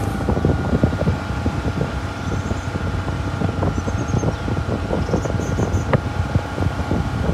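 Wind buffeting the microphone over a steady low rumble, with a thin steady whine above it.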